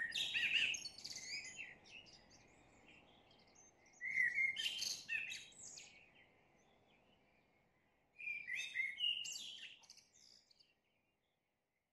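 A songbird singing three quick phrases of chirps and gliding whistles, about four seconds apart. The song stops shortly before the end.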